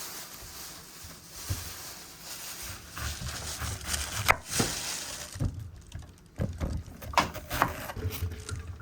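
Kitchen handling noises during cooking: scattered sharp knocks and clicks over a rustling hiss, the loudest knock about four seconds in. The hiss drops away about halfway through, leaving separate clicks.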